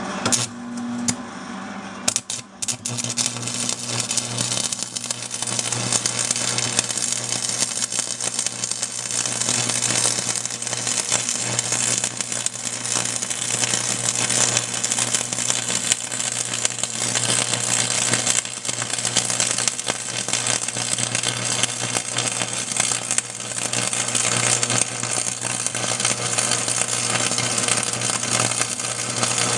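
Stick-welding arc from a 3/32-inch E6011 electrode at about 60 amps on an old Miller Thunderbolt welder: a few brief arc strikes in the first couple of seconds, then the arc catches and burns with a steady crackle and sizzle over a low hum while the bead is run.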